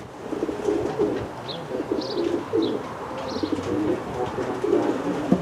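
Many racing pigeons cooing at once, their coos overlapping continuously, with a few short high chirps mixed in.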